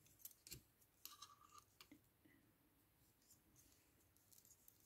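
Faint, scattered clicks of a set of five metal double-pointed knitting needles tapping against each other as stitches are worked, clustered in the first two seconds and again near the end, otherwise near silence.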